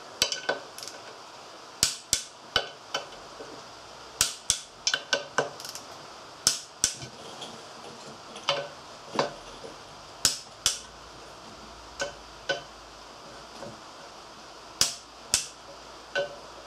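Click-type torque wrench on a 10 mm socket clicking over on the clutch pressure plate bolts, a sharp click, often doubled, every one to three seconds. Each click shows that a bolt has reached the set torque.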